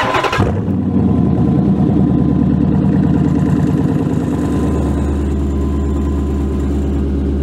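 Dodge Charger Daytona's Hemi V8 starting through a Solo Performance cat-back exhaust with the exhaust dumps open: a brief crank, then the engine catches and idles loudly. The idle settles and deepens about four seconds in.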